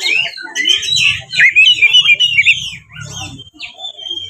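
Oriental magpie-robin in full, aggressive song: a fast, varied run of chirps, whistles and rattling notes. It thins out and softens about three seconds in.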